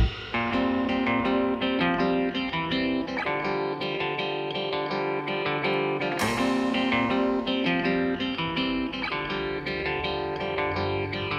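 Background music: a gentle plucked guitar melody.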